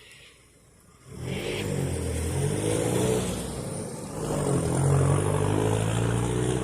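A motor vehicle's engine running and revving, starting suddenly about a second in, its pitch rising and falling, and growing louder a few seconds later.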